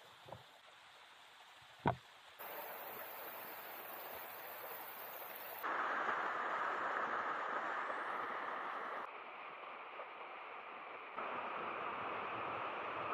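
Rushing water of a mountain stream and a small waterfall pouring over rock. The level jumps up and down abruptly several times and is loudest about six seconds in, with a single sharp knock about two seconds in.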